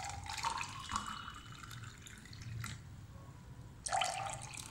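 Water poured from a small clay pot into a glass tumbler, a splashing trickle that fades out about three seconds in. It starts again near the end as a second glass is filled.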